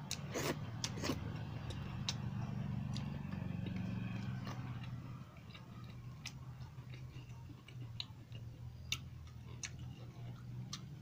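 Eating by hand: irregular wet clicks and smacks of chewing and of fingers working rice and chicken curry, over a steady low hum that is louder for the first five seconds or so.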